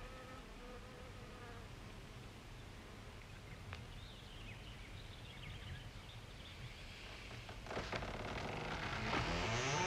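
Faint summer outdoor ambience with an insect buzzing. Music swells in over the last two seconds and becomes the loudest sound.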